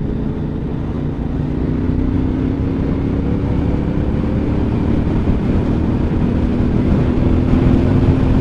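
Motorcycle engine running at road speed, its note rising gently over the first few seconds as the bike pulls on, then holding steady over a low rush.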